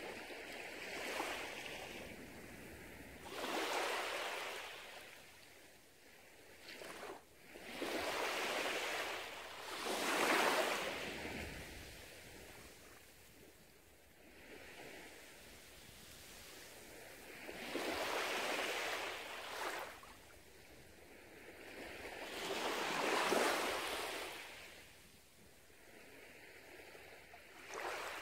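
Small waves washing up on a sandy beach, each wash swelling and fading. The washes come every few seconds at an uneven pace, with a quieter lull in the middle.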